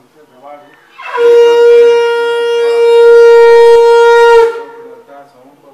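Conch shell (shankh) blown in one long steady blast of about three and a half seconds, beginning about a second in: a single clear held tone with many overtones, dipping slightly in the middle and ending abruptly.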